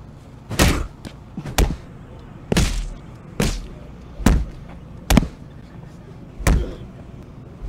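A wooden stick striking a person lying on the ground again and again: about seven loud blows, roughly one a second.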